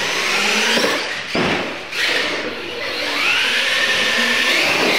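Electric motors of radio-controlled scale monster trucks whining under throttle as they race, the pitch rising and falling as the drivers accelerate and ease off, with a short easing about one and a half seconds in.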